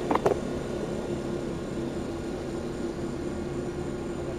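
Steady hum of an idling vehicle with a fan running, holding one constant tone, with two short sharp clicks a fraction of a second in.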